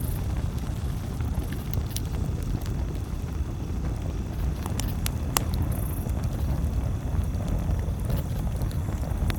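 Campfire crackling: scattered sharp pops and snaps, the loudest about five seconds in, over a steady low rumble.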